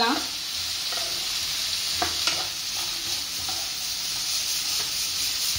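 Raw diced potatoes sizzling steadily in hot oil in a frying pan in their first minutes of frying, while a spatula stirs them and scrapes the pan, with a couple of light knocks about two seconds in.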